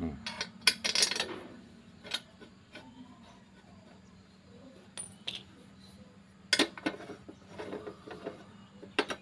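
Metal clinks and taps of a steel bolt and hand tools against a motorcycle engine's crankcase as the bolt is fitted and turned in by hand. A cluster of clatter comes about a second in and another around six to seven seconds, with single clicks between.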